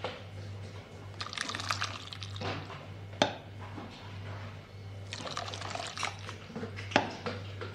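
Flan custard poured in a thin stream from a pot onto the back of a metal ladle and into an aluminium mould, splashing steadily. The ladle breaks the fall so the caramel layer underneath is not disturbed. A sharp metallic clink comes about three seconds in and again near the end.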